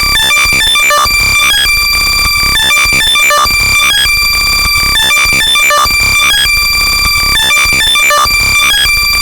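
Very loud synthesized high-pitched tones, heavily compressed and distorted, chopped into a fast stuttering rhythm by a slicer effect: an AirPods-finding sound meant to be heard from lost earbuds.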